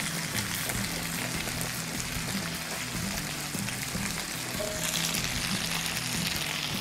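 Butter and cooking oil sizzling in a hot die-cast skillet, a steady even hiss.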